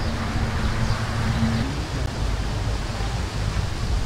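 Steady outdoor background noise with a low rumble, and a faint steady hum that stops with a slight upward slide about a second and a half in.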